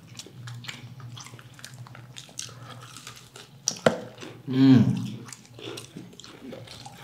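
Close-up chewing and crunching of fried chicken nuggets: many small crisp bite and mouth clicks, with one sharp crunch a little past the middle. A brief hummed voice sound, the loudest thing, comes about two-thirds of the way through.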